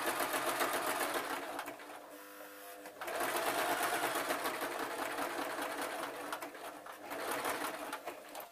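Domestic electric sewing machine running fast, stitching a straight seam through faux fur fabric. It stops for about a second around two seconds in, then runs again until just before the end.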